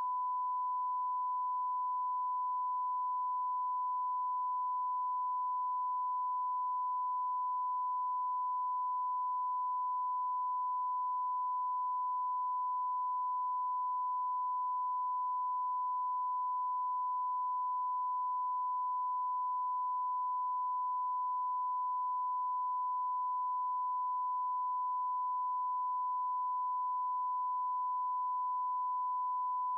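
Steady 1 kHz line-up test tone, a single unbroken pure pitch at an even level. It accompanies colour bars and is the reference signal used to set audio levels before a broadcast programme.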